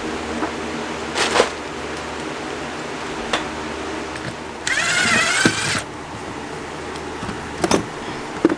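Black plastic sheeting being rustled and gathered up, with a louder, squeaky crinkle for about a second in the middle and a few sharp knocks of things set down on the plywood floor.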